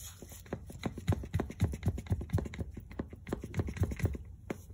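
Worn CV joint of an old front drive axle from a 2011 Buick LaCrosse, rocked sideways by hand and clicking in a rapid, irregular run, several clicks a second. The click-click is the sign of play in the joint, which the owner takes for the cause of the car's vibration.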